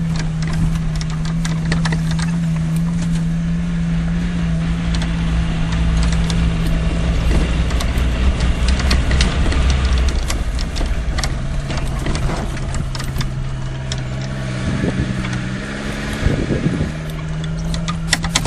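Off-road 4x4's engine running steadily while it drives a rough dirt track, heard from on board, with frequent knocks and rattles from the vehicle over bumps. The engine note drops about halfway through and rises again near the end.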